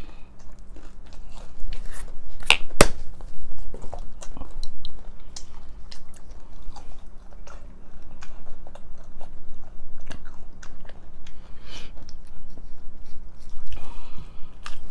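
Hard taco shells being bitten and chewed close to the microphone: irregular sharp crunches throughout, with two loud ones about two and a half seconds in.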